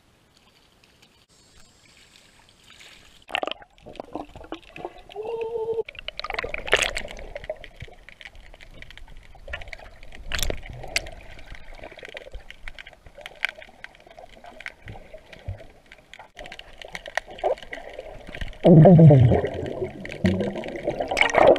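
Muffled underwater sound from a submerged action camera: water sloshing and bubbling, with scattered clicks and knocks against the housing. It starts almost silent, then a sharp knock comes as the camera goes in. A loud, low gurgle falls in pitch near the end.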